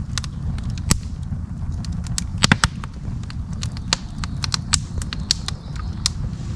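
Split-log campfire crackling, with irregular sharp pops, the loudest a quick cluster about two and a half seconds in, over a low steady rumble.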